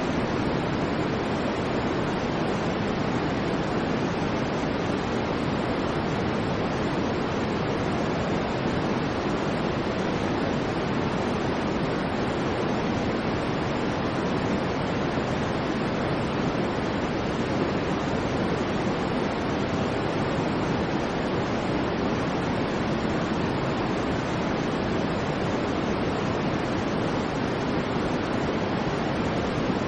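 Steady white noise, an unbroken even hiss with a deep, full low end, unchanging throughout.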